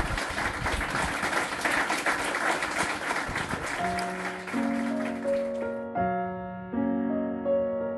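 Audience applauding at the end of a talk, stopping about six seconds in. Soft piano music fades in about four seconds in and carries on alone, a few slow notes at a time.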